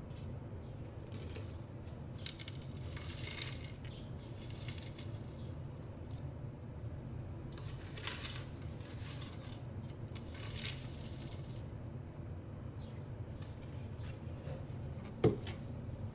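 Crushed Oreo crumbs being tipped into a bowl of whipped cream-cheese mixture, with short crinkly rustles of handling several times over a steady low hum. A single sharp knock near the end.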